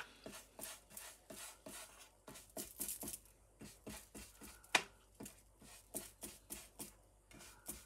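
A tool scratching at the edge of cardstock to distress and fray it: short, irregular scraping strokes, roughly three a second.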